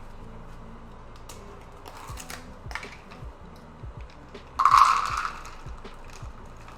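Roasted salted peanuts clicking and rattling as they are measured out by the cup, with one louder, brief rush of pouring peanuts a bit past halfway.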